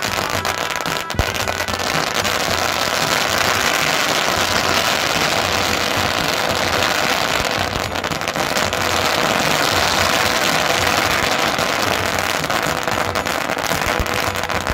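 A long string of about 16,000 firecrackers going off, the bangs so rapid that they merge into one continuous, steady crackling rattle.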